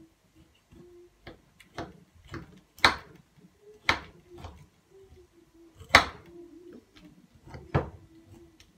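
Kitchen knife stabbing slits into a raw lamb shoulder on a ceramic plate: irregular sharp clicks and knocks as the blade strikes through to the plate, loudest about three and six seconds in.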